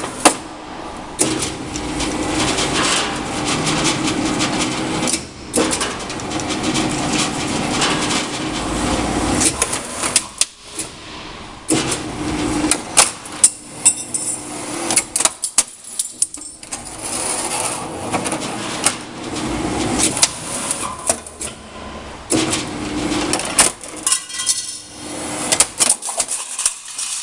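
RAS CNC sheet-metal machine (1300 mm width, 1.5 mm capacity) running an automatic feed-and-cut cycle: a steady motor hum as the material moves, with many sharp metallic knocks and a few brief lulls as it stops, cuts and reverses.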